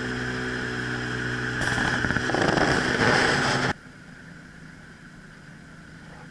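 Boat motor running steadily, with a rushing of water and wind joining about a second and a half in. It all cuts off suddenly past the middle, leaving a much quieter steady background.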